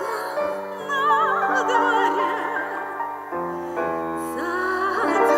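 A woman singing in operetta style with a wide vibrato over sustained instrumental chords; the chords change shortly after the start and again just past halfway.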